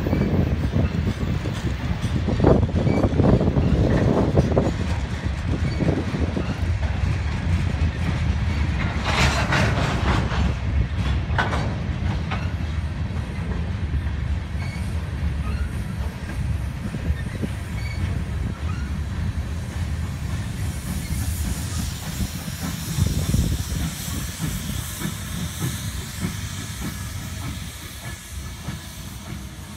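Freight cars of a CSX rock train rolling past: a steady low rumble and clatter of steel wheels on rail, with a short burst of high-pitched noise about nine seconds in and another shortly after. The sound fades near the end as the last cars move away.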